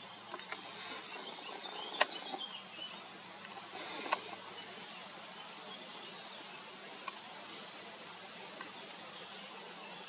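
Steady outdoor hiss with faint, high bird chirps in the first half, and two sharp clicks about two and four seconds in.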